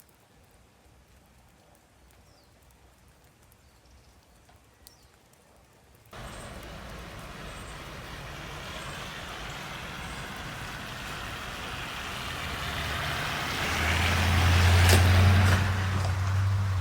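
A motor vehicle approaching and passing close. Its tyre and engine noise starts suddenly about six seconds in after a faint, quiet stretch, grows steadily louder, and peaks with a low engine hum about fifteen seconds in.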